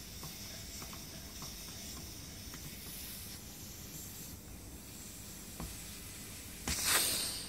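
Air hissing out of a motorcycle inner tube through the valve stem with its core removed, deflating the tube; a faint steady hiss that dies away after about four seconds, then a short louder rush of air near the end, with a few light ticks of handling.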